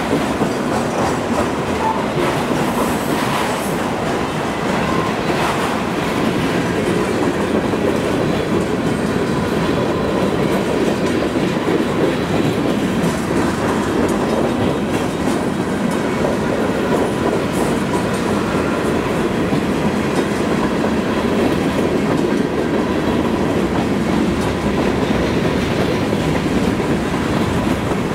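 Freight cars of a long mixed freight train rolling steadily past, wheels running on the rails in a continuous rumble, with wind noise on the microphone.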